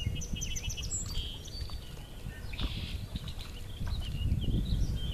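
Small birds chirping and calling in quick short notes, with wind rumbling on the microphone underneath.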